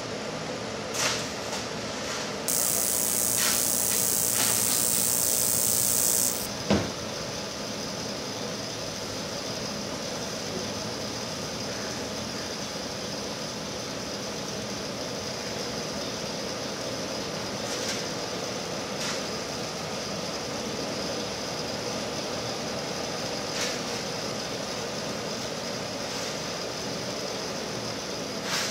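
A row of flat radiant gas burners and their air blower running with a steady rushing hiss. A loud high hiss sounds for about four seconds near the start, then a single sharp pop about seven seconds in as the burners light.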